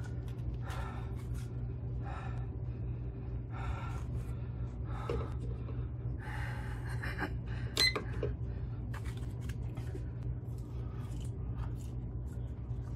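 Chewing beef jerky with breathing and mouth noises, and scattered rustles of a handheld plastic bag, over a steady low hum; one sharp click stands out about eight seconds in.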